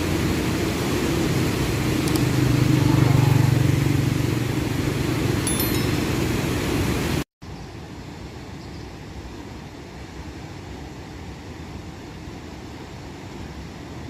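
Outdoor road-traffic noise, with a vehicle passing about two to four seconds in; about seven seconds in the sound cuts off abruptly and resumes as quieter steady background noise.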